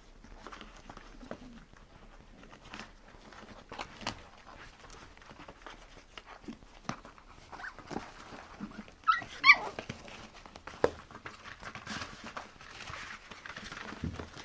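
Puppies scuffling and rustling on a blanket as they play, with a short high-pitched yelp about nine seconds in.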